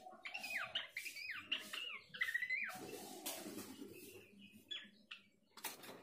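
Pelanduk semak babbler calling in a quick run of short whistled notes that slide up and down, thinning out after about three seconds. There is a rustle alongside the calls and a sharp click near the end.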